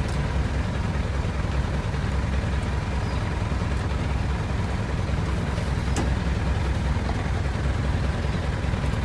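Engine of a caged safari truck idling, a steady low rumble.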